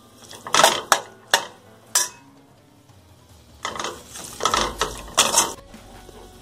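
Metal spoon clinking and scraping against a stainless steel kadai while stirring onions and tomatoes: a few sharp clinks in the first two seconds, then a run of scraping strokes about four to five and a half seconds in.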